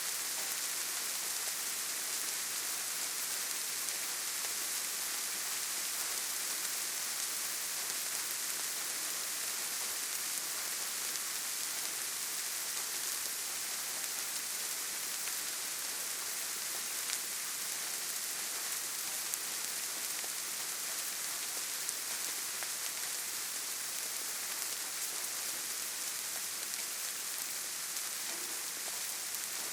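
Steady gentle rain falling on leaves and grass, an even high hiss with scattered individual drops ticking.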